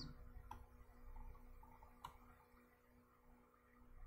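Near silence with two faint computer mouse clicks, about half a second and two seconds in, over a steady low electrical hum.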